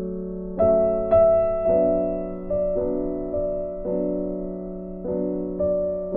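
Background piano music: slow notes struck about every half second, each fading out, over a held low tone.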